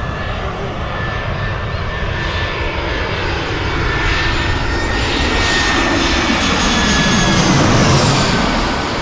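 AirAsia twin-engine jet airliner flying low overhead on its landing approach: a jet engine whine over a rushing roar that swells steadily. It is loudest about eight seconds in and starts to ease off just after.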